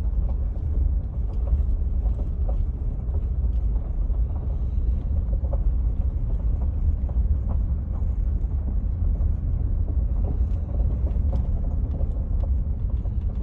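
A vehicle driving slowly, heard from inside the cabin: a steady low rumble with a few faint scattered clicks and knocks.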